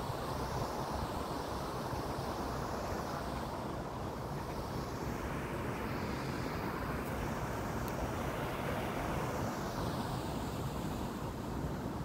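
Wind blowing across a phone's microphone: a steady rush of wind noise with no breaks.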